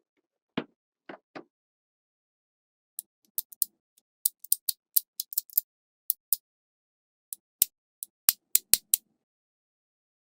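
Small magnetic balls clicking together as they are snapped into place: a few soft taps, then from about three seconds in, groups of quick, sharp, bright clicks with short pauses between.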